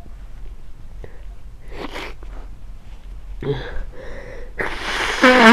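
A person with a head cold breathing in noisily a few times, then sneezing loudly near the end with a voiced, falling cry.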